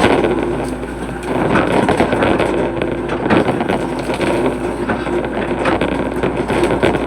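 Hitachi hydraulic excavator digging a ditch: its diesel engine runs steadily under load with the hydraulics working, and irregular knocks and scrapes come through.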